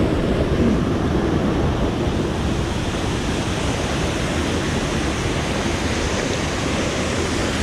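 Steady rush of a waterfall pouring inside a cave.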